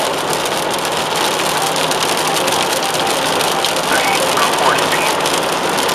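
Steady rushing road noise of a car at highway speed on wet pavement in rain, heard from inside the car: tyres hissing on the wet road with rain on the car.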